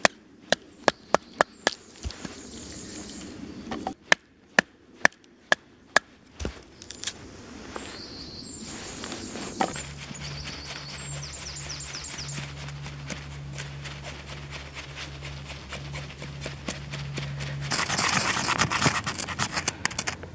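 A wooden baton striking the spine of a carbon-steel Mora bushcraft knife to split a log for kindling: sharp knocks, several a second at first, then about two a second. After that the blade shaves wood into feather sticks, a long run of fine rasping cuts that grows into a louder, denser scraping near the end.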